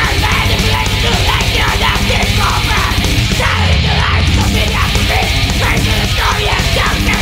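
Thrash metal music: distorted electric guitars over fast, steady drumming.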